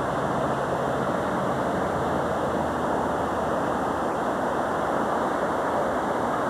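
Steady rushing noise of ocean surf, with a faint low engine hum that fades out about two seconds in.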